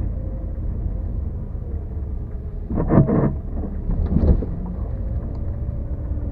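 Lada Vesta's suspension creaking and crunching as the car crosses a speed bump in wet weather, in two loud bursts about a second apart, about three and four seconds in, over the steady low rumble of the moving car. It is the strut creak that the owner calls a known Vesta shortcoming.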